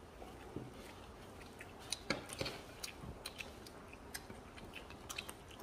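Chewing, lip smacks and small mouth clicks of people eating crispy fried stuffed tofu (tahu sumpel) by hand, with a few sharper clicks about two seconds in.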